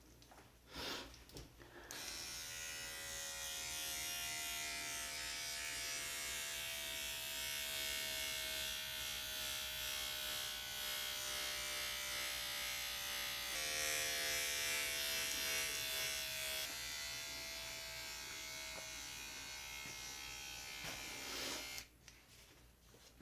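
Small handheld electric device buzzing as the tattoo machine, running steadily with a hum that slowly sinks in pitch. It breaks off for a moment about two-thirds of the way through, then runs on and stops shortly before the end.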